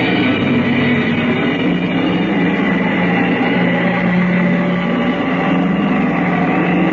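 Steady electronic music drone, several tones held without a break, serving as a radio-drama scene bridge.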